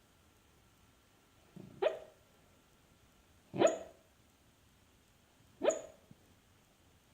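A sleeping dog giving short, sharp woofs in its sleep. There are three, about two seconds apart, each rising quickly in pitch.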